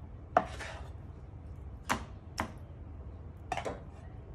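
Chef's knife knocking against a wooden cutting board while cutting meat off a raw chicken carcass: about four sharp, irregularly spaced knocks, the first followed by a brief scrape.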